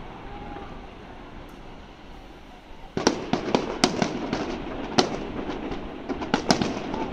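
Fireworks display: after about three seconds of steady background noise, shells start bursting in a quick series of sharp bangs and crackles that run on without a break.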